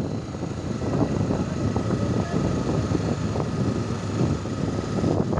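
Wind buffeting the microphone of a camera riding along on a mountain bike, mixed with the rumble of tyres rolling on a dirt road. The noise is steady but fluttering throughout.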